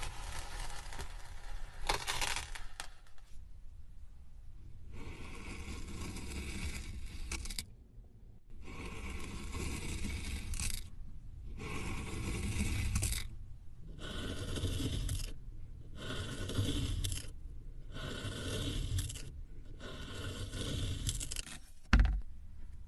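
A knife slicing through a packed block of kinetic sand: a grainy scraping, repeated in about eight separate strokes with short pauses between them. A thump comes near the end.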